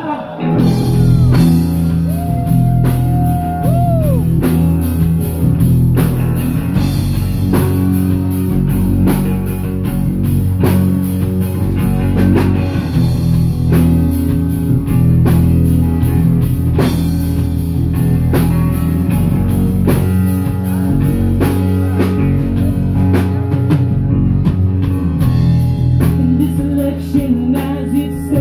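Live band playing an instrumental passage: a drum kit keeps a steady beat over a bass line and guitar.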